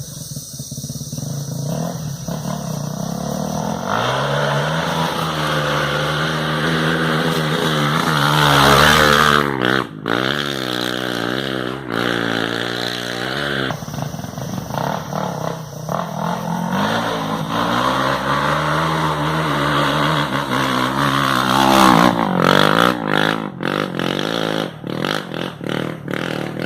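Honda XR 250 Tornado single-cylinder four-stroke engine, bored out to 293cc, revved up and down again and again through its exhaust, with quick blips of the throttle. Near the end comes a run of sharp cracks between revs.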